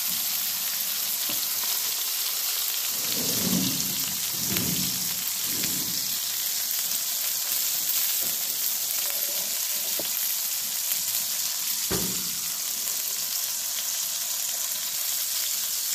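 Steaks sizzling in a hot cast iron skillet on a wood cook stove top, a steady frying hiss. A few seconds in come several low scrapes as the heavy skillet is slid across the cast iron stovetop, and later a single sharp knock.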